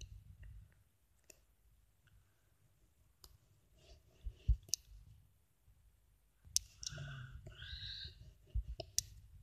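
Handling noise: scattered faint clicks and small knocks as the metal toy locomotive model and the recording phone are moved about, with a short stretch of rustling about seven seconds in.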